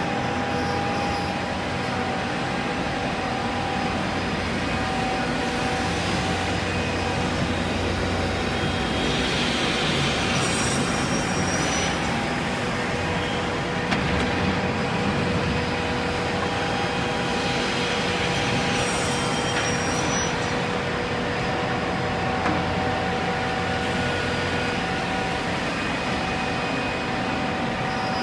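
Holztek TECTRA 328 CNC panel saw running in a woodworking shop: a steady machine hum with a few constant tones. About ten seconds in, and again near twenty seconds, a louder hissing rush rises and falls as the saw cuts through the board stack.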